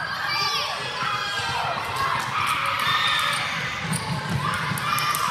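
Children running on a gym floor in a relay game, their footfalls mixed with high shouting voices.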